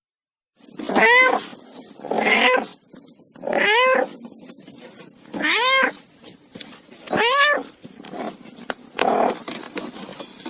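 Kitten meowing repeatedly: six short calls about every one and a half to two seconds, each rising then falling in pitch, a couple of them harsher.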